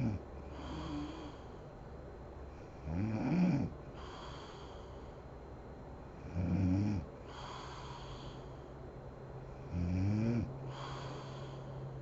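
A sleeping woman snoring: four loud, pitched snores about every three and a half seconds, each rising in pitch, with a softer airy breath between them.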